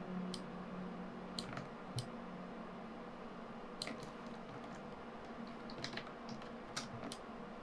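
Faint, scattered clicks of a computer mouse and keyboard, about a dozen spread irregularly, including the Ctrl+Z undo shortcut. A faint low hum sits under the first couple of seconds.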